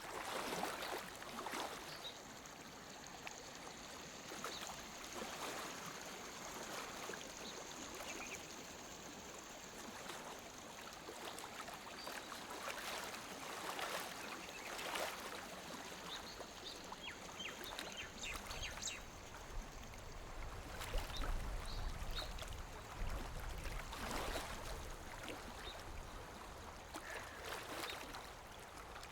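Small waves lapping at a lake shore: soft, irregular splashes every couple of seconds over a steady wash of water. A low rumble rises under it about two-thirds of the way through.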